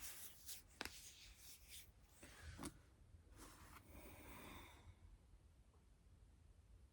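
Faint rubbing and breathy noises from a person moving, with two light clicks, about a second in and near the middle; it falls to near silence about five seconds in.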